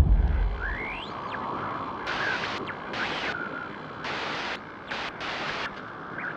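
Glitchy static sound effect. A deep bass boom dies away over the first second, then a hiss runs on, cut by several abrupt bursts of bright static and a few short whistling glides.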